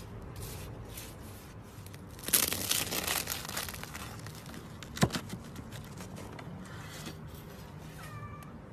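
A knife cutting through the crisp, charred crust of a baked bread loaf, giving a burst of crunching and crackling about two seconds in, then one sharp click about five seconds in, with lighter crackle around it.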